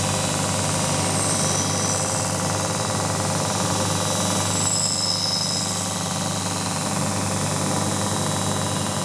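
Allrounder skate-sharpening machine grinding a steel ice-skate blade: a steady motor hum under the grinding noise of the wheel on the steel.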